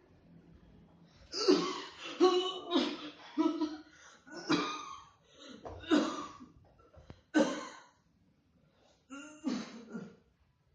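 A man coughing deliberately in a run of about eight short, hard coughs, with a brief pause before the last couple near the end.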